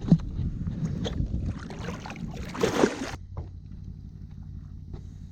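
Water sloshing and splashing around a kayak, with a sharp knock at the start and a louder splash about two and a half seconds in, over a low wind rumble on the microphone.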